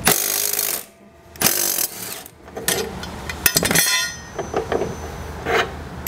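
Milwaukee Fuel cordless impact driver hammering a lawnmower's blade bolt loose in two short bursts about a second apart. Sharp metal clinks and rattles follow as the blade and bent blade adapter come off the crankshaft.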